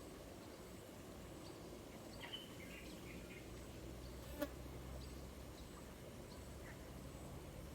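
Faint outdoor ambience: a steady low hum with a thin, high insect tone over it, a few short chirps about two to three seconds in, and one sharp click a little after halfway.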